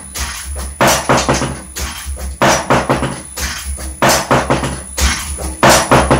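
Loud clusters of sharp percussive hits repeating in a regular rhythm about every second and a half, over a steady low hum.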